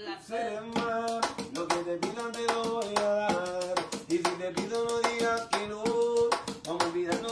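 A voice singing a melody in held notes without clear words, over a quick rhythm of hand percussion.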